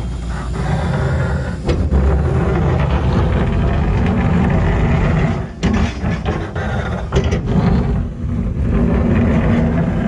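Hydraulic excavator digging a trench: diesel engine running under load with a steady low rumble, broken by a few sharp knocks from the bucket working the clay.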